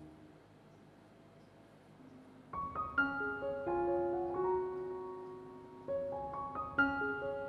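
Background music: a gentle piano tune begins about two and a half seconds in, after a near-silent pause.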